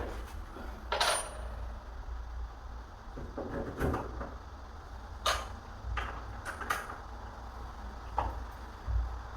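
Irregular light metallic clinks and taps, about eight of them, as small metal door hardware and tools are handled during door repair.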